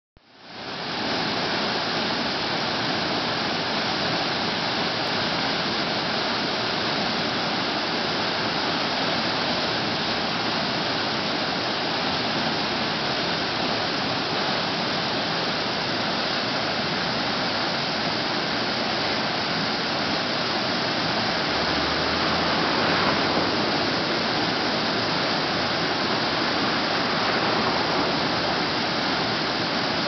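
Waterfall plunging into its plunge pool: a steady rush of falling water that fades in over the first second. The fall is one that is usually dry, running after heavy rain.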